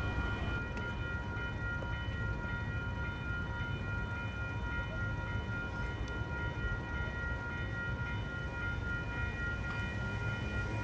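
A train standing and running steadily: a continuous low rumble with several high steady tones held above it, unchanging throughout.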